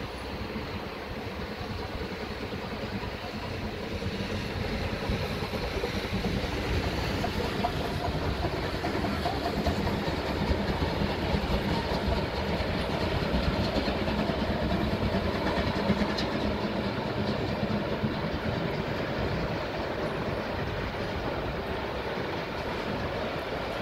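Steam locomotive hauling a train of passenger coaches past, with the engine's exhaust and the wheels running on the rails. The sound grows louder a few seconds in, is loudest in the middle and eases off near the end as the coaches roll by.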